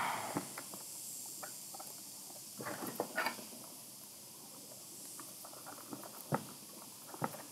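Small clicks and scrapes of hands fitting a wire into a plastic screw-terminal connector block inside a plastic enclosure and turning its screw with a small screwdriver. Scattered light clicks, with a short flurry of them about three seconds in.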